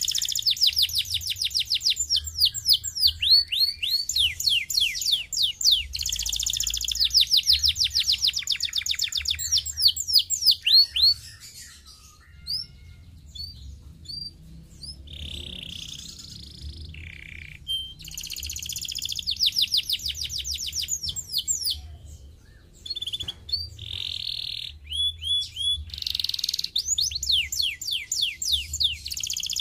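Domestic canary singing in rapid trills of quick down-sweeping notes. The song breaks off briefly about halfway through, goes on with a few longer held whistled notes, then returns to fast trills.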